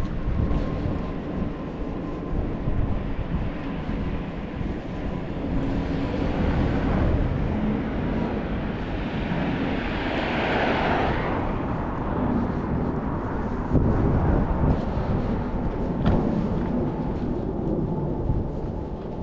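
Train running, a steady low rumble with a faint steady whine. A rush of hissing noise swells and fades about halfway through.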